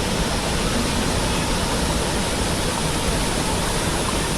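Large waterfall: water falling and crashing, a steady, unbroken rush of noise.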